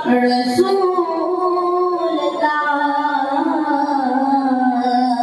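A boy's voice singing a naat unaccompanied, drawing out the word 'rasool' of the salawat in long held notes that bend slowly in pitch.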